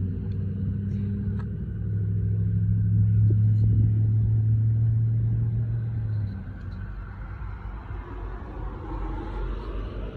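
A motor running with a steady low hum, which cuts off about six seconds in, leaving a faint low rumble and a few light clicks.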